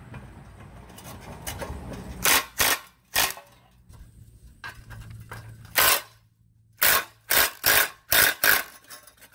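Ryobi cordless impact driver hammering in several short bursts on a rusted muffler bolt. The bursts come twice near the start, then five or six in quick succession in the second half.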